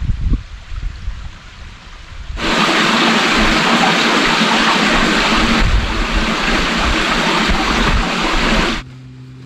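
Mountain stream water rushing as a loud, steady hiss that starts suddenly a couple of seconds in and cuts off abruptly near the end. Before it, low uneven rumbling on the microphone.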